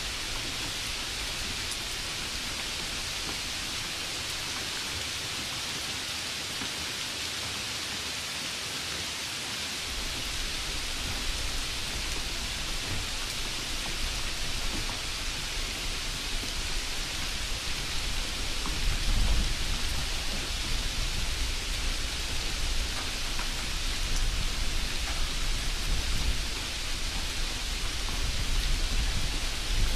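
Steady rain hiss, with a low rumble building from about ten seconds in and swelling twice near the end.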